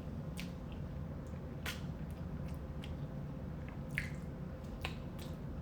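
A person eating seafood close to the microphone: wet chewing and mouth smacks, with scattered sharp clicks and squishes.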